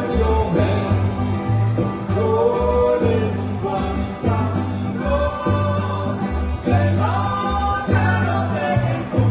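Cuban son played live by an acoustic band: a singing voice over strummed acoustic guitars, including the seven-string armónico, with a guitarrón plucking a repeating bass line.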